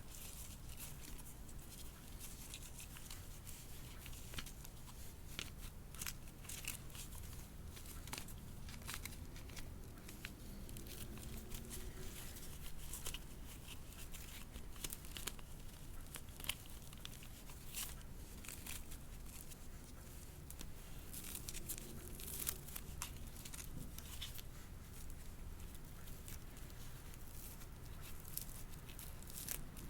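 Hands handling a fashion doll and its packaging: scattered light rustles, crinkles and small clicks.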